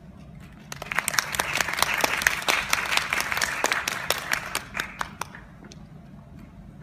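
Audience applauding: clapping starts about a second in, swells quickly, then dies away after about five seconds, leaving a few last scattered claps.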